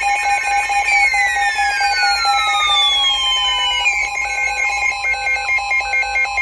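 Several weather alert radios alarming at once for a special marine warning: overlapping electronic beeps pulsing at different rates over steady tones, with a falling tone sweep from about one to four seconds in.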